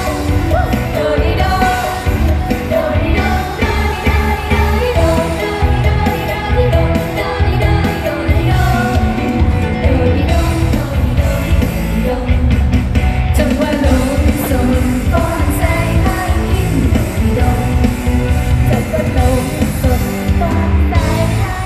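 Live idol-pop song played loud through stage PA speakers: female group vocals singing over a driving beat.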